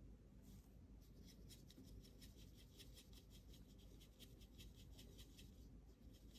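Faint, quick scratchy strokes of a watercolour brush rubbing on paper, about five a second, stopping about five seconds in.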